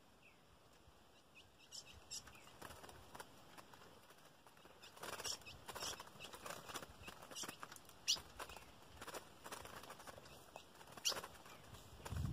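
Ultramarine grosbeak (azulão) flapping and fluttering at a wire trap cage, with short sharp chip notes, in a scattered series of brief sounds that grow stronger after the first few seconds, loudest about eight and eleven seconds in.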